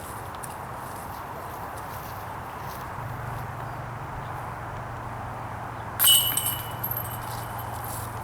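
A disc striking a metal disc golf basket about six seconds in: one sharp metallic clank followed by a ringing jingle that fades over about two seconds, over steady background noise.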